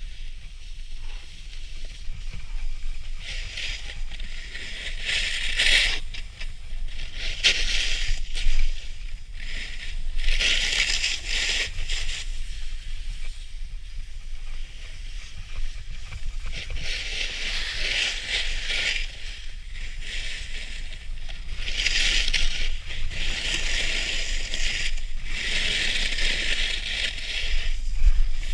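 Snowboard edges scraping and carving over packed snow in a series of turns, each scrape a hiss lasting one to three seconds, over a steady low rumble.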